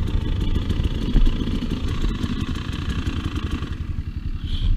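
Two-stroke dirt bike engine running with a rough, uneven low rumble; a higher hiss drops away near the end.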